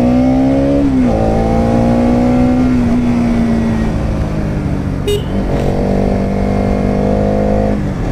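Bajaj Pulsar NS200's single-cylinder engine pulling on the road: the revs climb, drop sharply about a second in, hold, then ease off around four seconds. It picks up and runs steadily again, and the revs drop once more near the end. A short sharp click about five seconds in.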